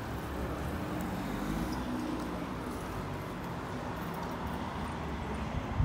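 Low, steady rumble of city street traffic.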